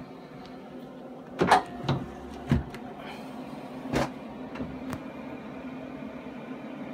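Gerber Edge thermal-transfer vinyl printer working: a steady low hum broken by a few sharp mechanical clunks and clicks, the loudest about one and a half seconds in, then others at about two, two and a half and four seconds.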